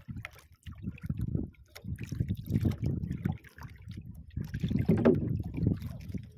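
Sea water sloshing and slapping against the hull and float of a small outrigger boat, in uneven surges every second or so.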